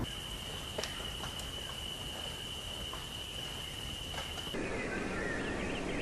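A steady, high-pitched insect buzz with a few faint clicks, which cuts off about four and a half seconds in. A small songbird then sings a quick, twittering warble.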